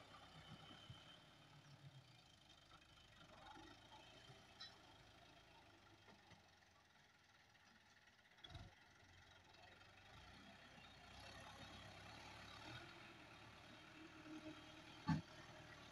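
Fiat 640 tractor's diesel engine running faintly and steadily as its front blade pushes brush, with a dull thump about halfway through and a sharper knock near the end.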